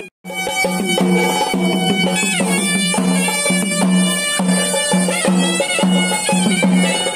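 Traditional music: a wind instrument plays a melody over a low beat that pulses about twice a second. It drops out briefly just after the start.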